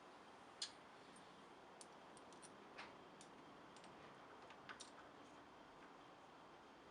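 Near silence with a few faint, scattered clicks and light taps of small metal parts, such as bolts and steering box pieces, being handled and set in place.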